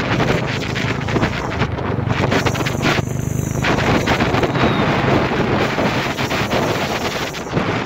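Wind buffeting the microphone: a loud, uneven rushing noise with crackles, as from wind blowing across the mic while moving outdoors.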